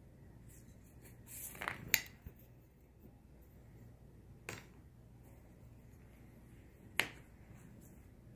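Sharp clicks and taps of a pencil knocking on a tabletop as a cat paws at it. There is a short flurry of clicks about two seconds in, then single clicks at about four and a half and seven seconds in.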